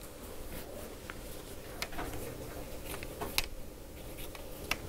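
Quiet classroom room tone: a steady low hum with scattered small clicks and rustles.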